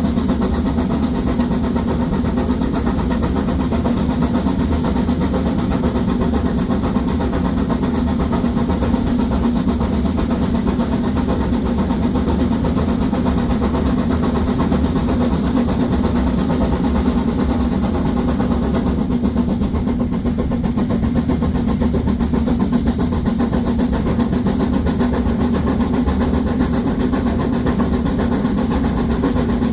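Narrow-gauge 2-10-2 tank steam locomotive 99 7240-7 working hard up a steep 1:25 grade with a heavy seven-coach train, giving a loud, steady run of exhaust and running noise.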